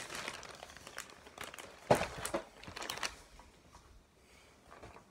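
Plastic packaging crinkling and rustling as an MRE heater bag is handled and wedged between two packets of biscuits, with one sharp knock about two seconds in. The rustling dies down after about three seconds.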